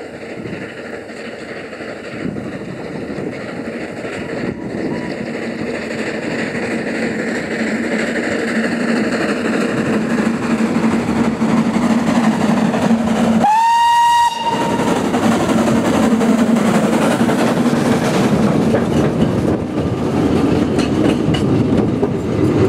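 Narrow-gauge steam locomotive hauling wooden coaches, growing steadily louder as it approaches and passes close by, with one short whistle blast a little past halfway.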